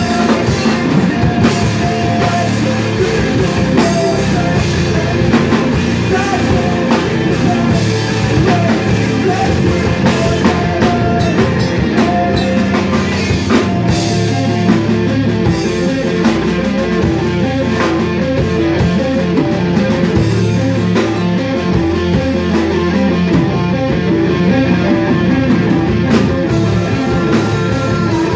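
Live rock band playing loudly and without a break: electric guitars, bass guitar and a full drum kit.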